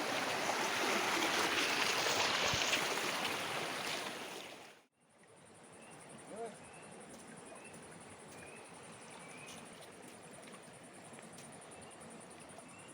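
Rushing stream water as an even hiss for about five seconds, then an abrupt cut to a much quieter background of faint water noise with short high chirps repeating roughly once a second.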